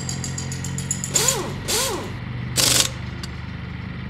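Mechanical sound effects for an animated logo with a spinning wrench: a steady low mechanical hum, two swooshes with a rising-and-falling tone about a second in, then a louder swoosh near the three-second mark.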